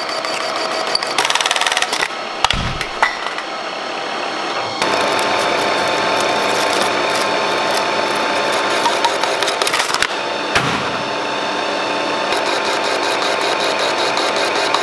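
Metal lathe running, with a boring bar cutting into a metal disc spinning in the chuck: a steady machine whine under the noise of the cut. There are a few sharp knocks in the first three seconds, and the cutting gets louder about five seconds in.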